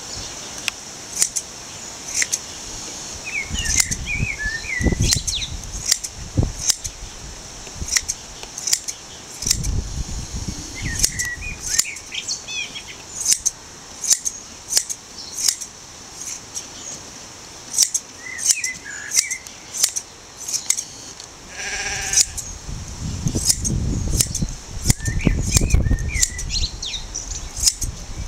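Hand blade shears snipping through a Shetland sheep's fleece, with a crisp, irregular snip every second or so. Birds chirp now and then, and there is low rumbling at times.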